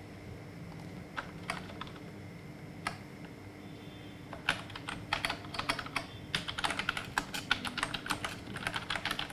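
Typing on a computer keyboard: a few scattered key presses at first, then quick, continuous typing from about halfway through, over a steady faint hum.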